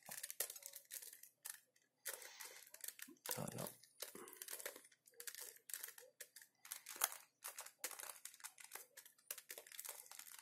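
Plastic 3x3 Rubik's cube being turned by hand: a quick, irregular run of clicks and scrapes as its layers are twisted through a move sequence, the left-hand algorithm that drops an edge piece into the second layer.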